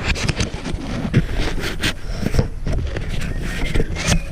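Handling noise right on the camera: scraping, rubbing and many quick clicks and knocks as an accessory is forced onto the camera body, over a low rumble of wind on the microphone.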